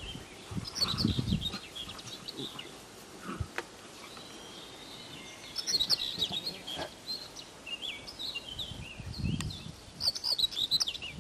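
Small birds chirping in quick, twittering clusters, joined by low rumbling bursts about a second in and again near the end.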